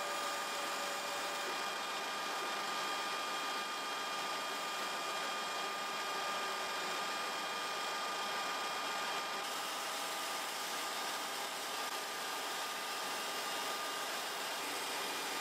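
Steady hiss of engine-room machinery and ventilation noise, with a faint steady high whine running through it. The noise changes slightly about nine seconds in.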